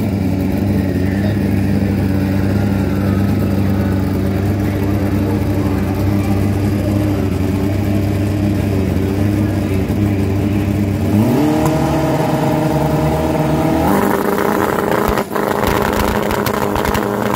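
A vehicle engine running steadily at low speed. About 11 seconds in it rises in pitch, and from about 14 seconds it runs louder and harsher.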